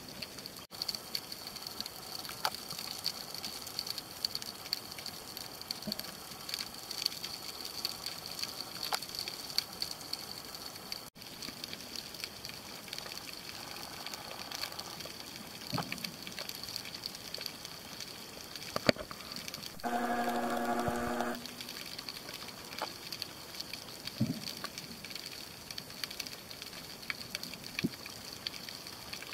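Underwater ambience picked up by a snorkeller's camera: a steady crackle of many small clicks. About two-thirds of the way through, a short humming tone lasts about a second and a half.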